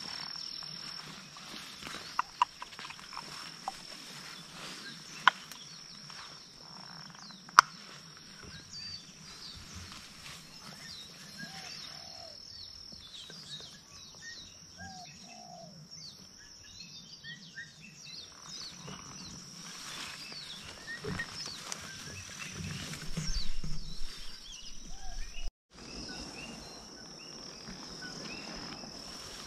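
Leafy vines rustling and swishing as a person pushes on foot through dense undergrowth, over a steady high insect trill and scattered short chirps. A few sharp clicks come in the first third, and the rustling grows louder about three quarters of the way through.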